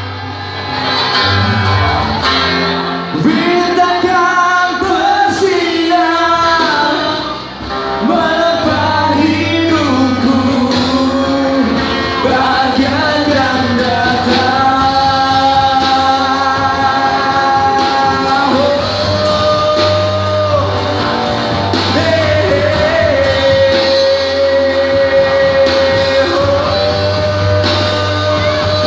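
Live rock band of electric guitar, bass guitar and drums playing while a male singer sings a melody into a microphone, holding long notes through the second half.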